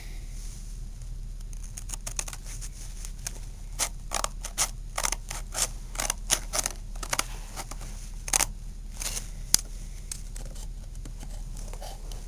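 Scissors cutting through a sheet of black sandpaper to make fingerboard grip, heard as a run of short, irregular snips.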